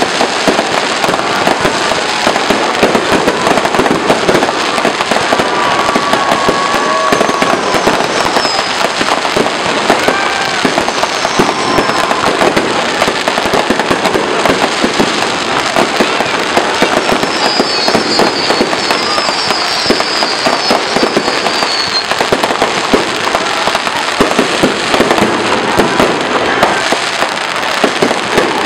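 Aerial fireworks display: a dense, unbroken barrage of shell bursts, bangs and crackle following one another rapidly.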